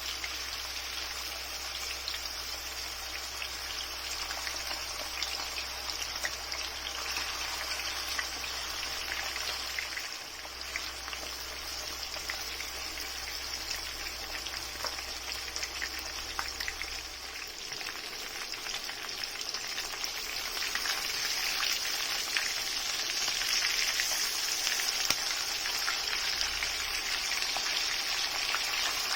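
Marinated chicken pieces frying in hot oil in a frying pan: a steady sizzle with fine crackling, growing a little louder in the last third.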